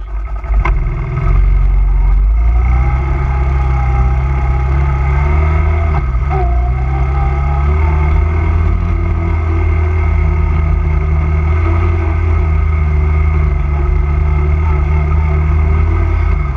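The engine of a 250cc Honda quad bike runs steadily under way, heard close up from the handlebars as a loud, low drone. It comes up to full level over the first second or so, with a single knock about half a second in.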